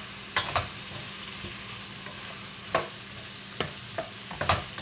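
Cauliflower, carrots and red bell pepper sizzling as they are stir-fried in a stainless steel wok. A steady hiss runs throughout, and a spatula scrapes and knocks against the pan several times.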